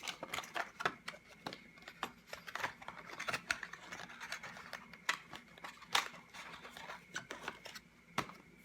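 Yo-yos being handled and set down: a string of small clicks, taps and scrapes, with sharper clicks about six and eight seconds in.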